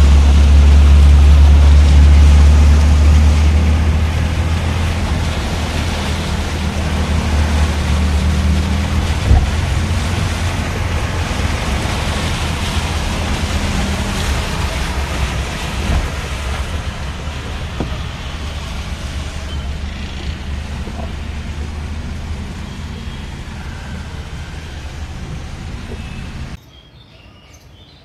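Car driving through deep floodwater, heard from inside the cabin: a heavy low rumble for the first few seconds, then a steady rush of water and road noise that slowly fades and cuts off near the end.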